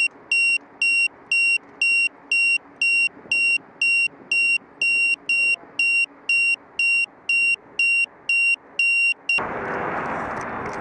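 An electronic beeper sounding short, high beeps at an even rate of about two a second. It cuts off suddenly near the end and a steady rushing noise takes over.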